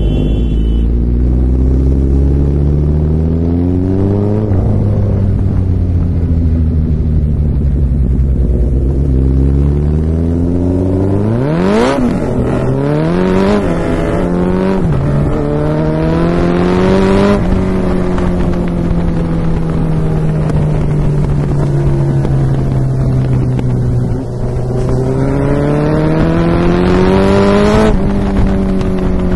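Suzuki Hayabusa's inline-four engine accelerating hard through the gears. Its pitch climbs in long sweeps and drops at each shift, and it falls away on a long deceleration in the middle. Sharp exhaust pops and crackles break out after a quick rise in revs about midway and again near the end.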